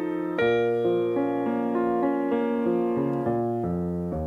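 Background piano music: a slow run of notes and chords, with a new chord struck about half a second in.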